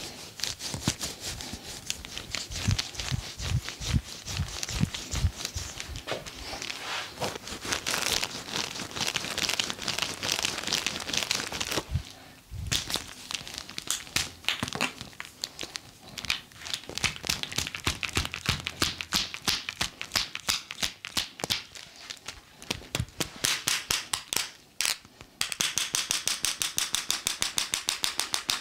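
Barber's hands working on skin in a massage: dense rubbing and crackling strokes, turning a few seconds before the end into fast, even tapping strokes of about six a second.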